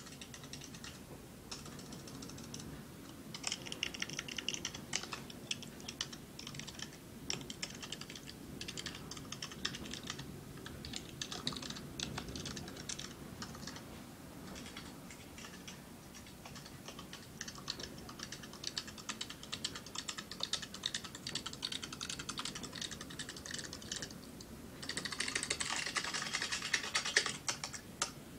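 Typing on a computer keyboard: runs of keystrokes broken by short pauses. Near the end comes a few seconds of fast, dense key-mashing.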